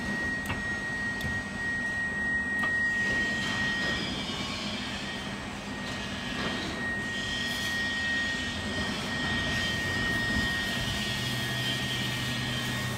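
Electric drive motor and gear reducer of a welding positioner turning its table at slow speed: a steady whirring hum with a thin, steady high-pitched whine over it.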